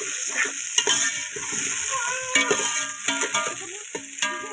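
Tomatoes, green chillies and browned onions sizzling as they fry in an aluminium pot, with a steady hiss. A metal spatula scrapes and knocks against the pot as it stirs, and the pot rings briefly at several of the knocks. The masala is being stirred and fried down (bhuna).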